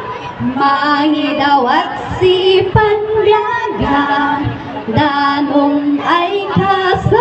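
A woman singing a slow melody in long held notes, sliding briefly from one note to the next.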